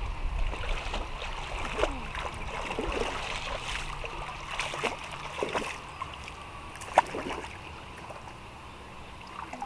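Shallow muddy water splashing and sloshing as children wade and grope in the mud with their hands for freshwater mussels, in scattered irregular splashes, with one sharp knock about seven seconds in.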